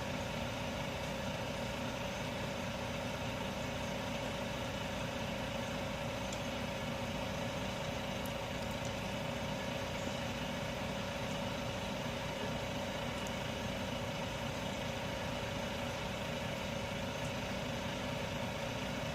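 Engine of railway maintenance machinery running steadily, with a constant droning hum over it.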